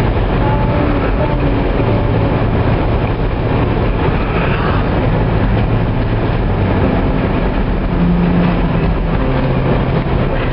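Steady in-cabin driving noise from a vehicle cruising on a sealed road: a continuous low engine drone under the roar of tyres and wind.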